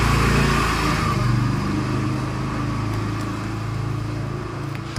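A motor vehicle engine running, loudest in the first second or so and then easing off, with a couple of faint clicks later on.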